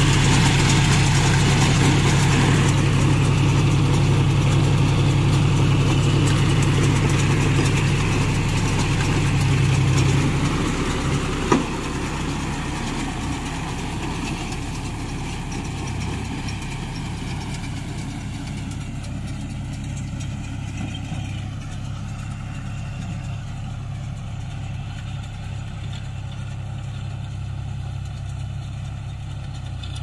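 John Deere 5039D tractor's three-cylinder diesel engine running steadily while it drives a baler through rice straw. It is loud and deep up close for the first ten seconds, then fainter and thinner as the tractor moves away, with a single sharp knock about eleven seconds in.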